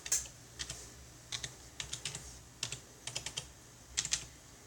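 Typing on a computer keyboard: keys clicking in short, irregular runs, a cluster every half second or so.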